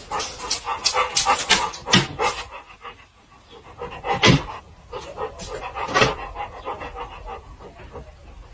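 A dog panting in quick breaths, fast at first, then slower and more spaced out, with a couple of louder breaths in the middle.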